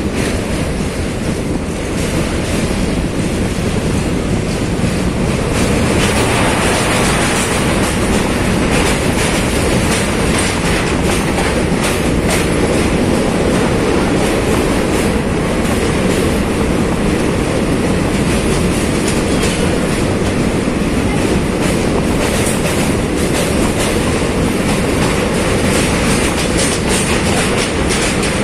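Two trains passing each other on a steel truss railway bridge: a steady heavy rumble of wheels on rails with rapid clickety-clack over the rail joints. It grows louder about six seconds in as the passenger coaches of the oncoming train rush past close alongside.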